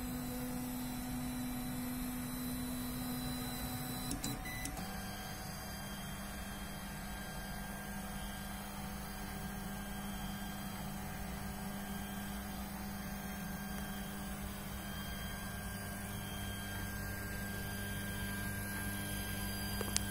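Homemade Arduino-based 3D printer running, a steady motor whine and hum. About four seconds in there is a click, and the whine then settles to a lower pitch.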